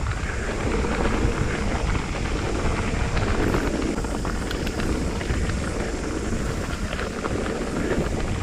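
Mountain bike rolling down a rough dirt trail: wind buffeting the camera microphone over a steady rumble of tyres on dirt, with scattered rattles and clicks from the bike.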